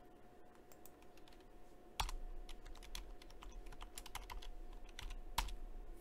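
Typing on a computer keyboard: a quick, irregular run of key clicks.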